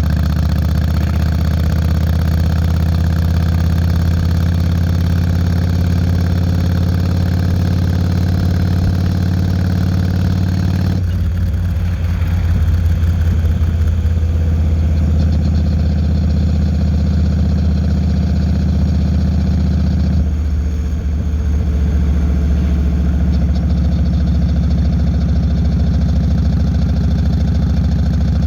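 Yamaha Road Star 1600's carburetted air-cooled V-twin running through Vance & Hines Longshots exhaust pipes, a steady deep note that changes twice, about eleven and about twenty seconds in.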